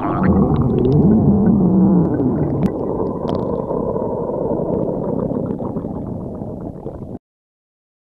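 Loud stomach growling: a wavering, pitched growl for the first two seconds or so, then a low gurgling rumble that slowly fades and cuts off abruptly about seven seconds in.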